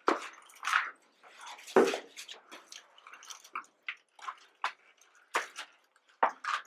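Irregular scuffing and crunching footsteps on a gritty rock floor, about one or two a second, the loudest near the start and about two seconds in.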